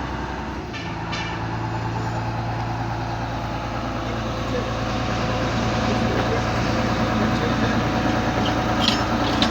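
Heavy vehicle engine running steadily. Its note changes about a second in, then it grows gradually louder through the second half.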